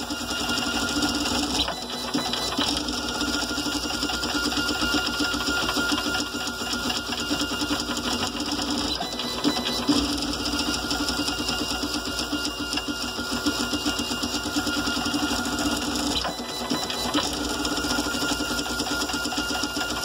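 A GARCAD 3D printer running a print at 400 mm/s and 16 m/s² acceleration: its stepper motors buzz in a fast, unbroken chatter as the print head darts back and forth, with several steady high tones over it. The rhythm changes a few times as the moves change.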